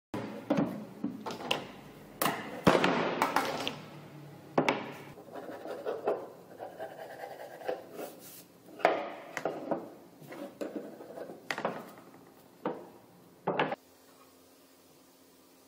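Hardwood blocks and hand tools being handled on a table-saw table: a string of knocks and clatters of wood on wood and on the table, with some scraping, going quiet about fourteen seconds in.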